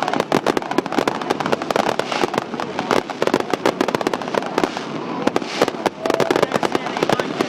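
Fireworks crackling in a rapid, dense stream of sharp pops, many a second, with no pause.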